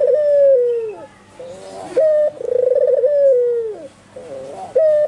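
White albino puter (Barbary dove) cooing loudly and repeatedly: each call is a short note, then a rolling trill, then a long falling coo, coming about every two and a half seconds.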